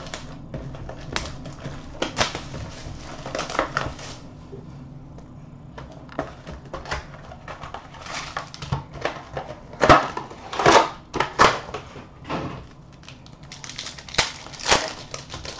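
A sealed hockey trading-card box being torn open and its contents handled: irregular crinkling and ripping of wrapper and cardboard. The loudest rips come about two-thirds of the way through and again near the end.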